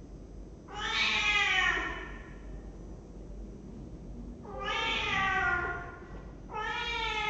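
Domestic cat meowing: three long meows, each falling in pitch toward its end, the last running on past the end.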